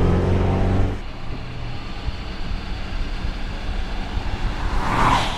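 Mercedes-AMG EQS 53 electric car's drive sound: a hum of several steady tones over a low rumble that cuts off about a second in, leaving a quieter low rumble, with a short whoosh near the end.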